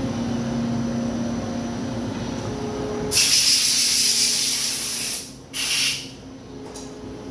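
Daewoo Puma CNC lathe running with a steady hum, then a loud hiss about three seconds in that lasts about two seconds, stops, and comes back in a short burst about half a second later.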